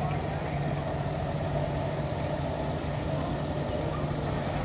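Rack-railway locomotive standing with its engine running: a steady low hum.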